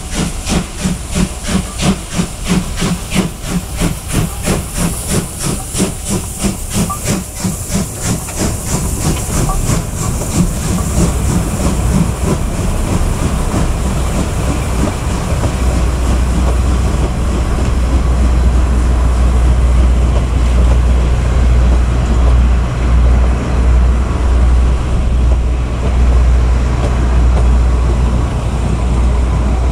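Steam locomotive C58 239 working up a steep grade: a regular beat of exhaust chuffs with hissing steam, fading over the first ten seconds. After that the passenger coaches roll past with a steady low rumble.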